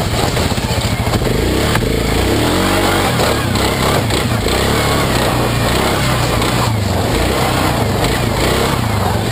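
Suzuki King Quad 750 ATV's single-cylinder four-stroke engine running as the quad drives over snow, its revs rising and falling briefly about two to three seconds in, heard close from the front of the machine.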